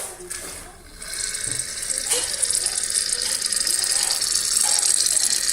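Aerosol can of shaving foam spraying: a loud, steady, crackling hiss that starts about a second in and runs on as the foam is dispensed.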